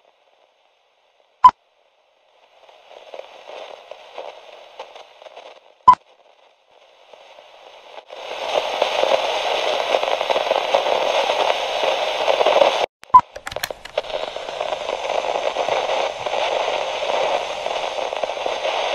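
Old-film style crackle and hiss, faint at first and much louder from about eight seconds in. Three loud, sharp cracks cut through it: about a second and a half in, about six seconds in, and about thirteen seconds in, just after a brief dropout.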